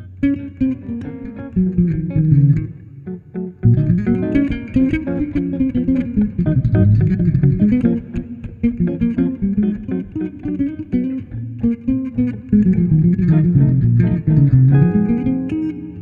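Hollow-body archtop electric guitar and electric bass playing an instrumental duo, plucked notes over a moving bass line. The playing thins briefly about three and a half seconds in, then comes back fuller.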